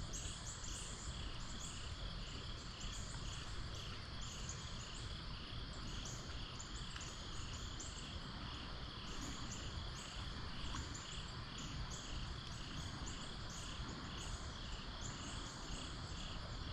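Insects chirping in a steady, even rhythm, about three chirps a second, with higher chirps over them and a steady low rush underneath.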